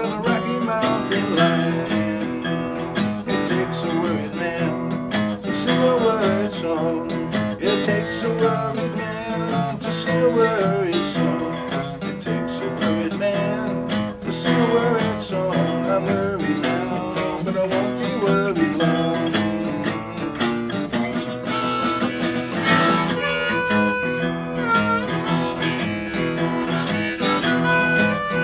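Harmonica in a neck rack playing a bluegrass melody over acoustic guitar accompaniment, an instrumental break between sung verses.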